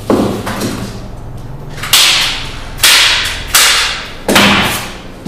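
Hand staple gun firing staples into a wooden canvas stretcher bar, five sharp snaps about a second apart, each ringing briefly in the room, as the folded canvas corner is fastened.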